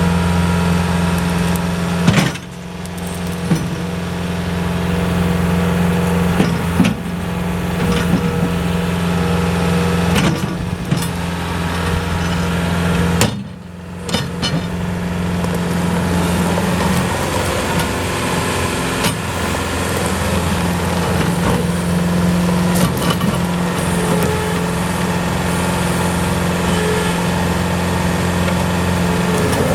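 Bobcat S185 skid steer loader's four-cylinder diesel engine running steadily, with a few sharp knocks and clanks. The engine sound briefly dips twice.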